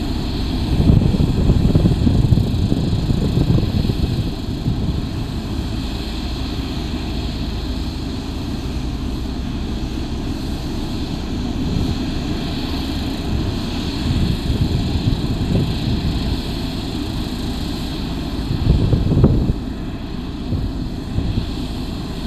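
Diesel engine of an Ammann ASC100 single-drum soil compactor running steadily as the roller drives over aggregate. It swells louder about a second in and again near the end.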